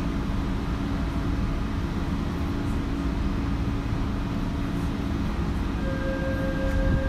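Tokyo Metro 2000-series subway train running: a steady rumble with a low hum, joined about six seconds in by a steady higher whine.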